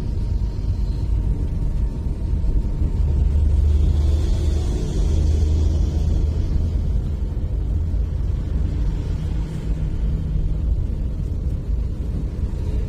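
Steady low rumble of engine and road noise, heard from inside a moving vehicle. It swells around four to six seconds in as a truck passes close by.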